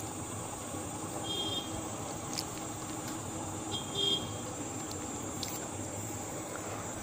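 Outdoor roadside ambience: a steady hiss with a thin high whine, broken by two short high-pitched toots, the second about two and a half seconds after the first and the loudest.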